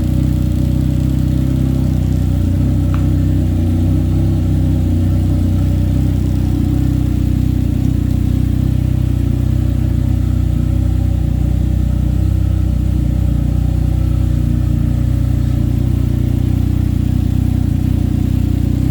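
Can-Am Ryker three-wheeler's engine idling steadily.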